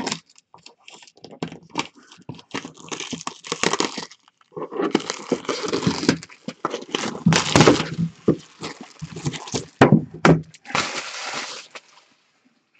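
Cellophane shrink-wrap being torn and crumpled off a cardboard box: an irregular run of crinkles and sharp crackles, with longer dense rustling stretches and a few knocks of the box as it is handled.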